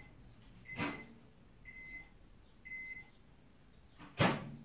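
Microwave oven beeping at the end of its cycle: three short high beeps about a second apart, with a click at the first. A sharp knock about four seconds in is the loudest sound.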